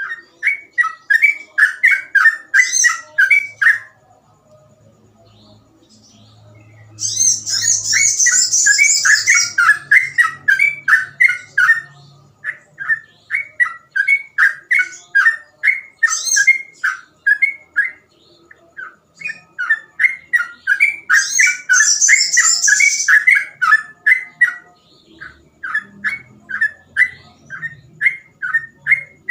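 Sooty-headed bulbul (trucukan) singing long, rapid runs of quick repeated notes, broken by several higher, faster trills. It pauses for a few seconds about four seconds in, then sings on.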